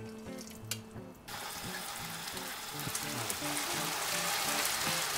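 Hot olive oil and garlic in a frying pan sizzling as wet spaghetti and its cooking water go in: the sizzle starts suddenly about a second in and builds as the pasta is tossed with tongs.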